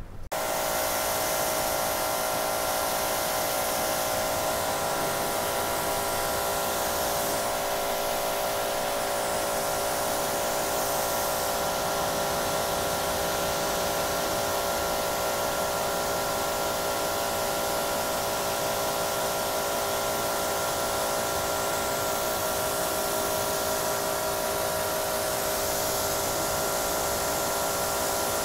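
Electric pressure washer running steadily, a motor whine with the hiss of the water jet, switched on right at the start: the soaped motorcycle being rinsed.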